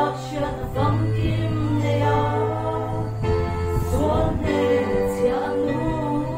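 Female vocal trio singing together into microphones over backing music, with held bass notes that change pitch a few times.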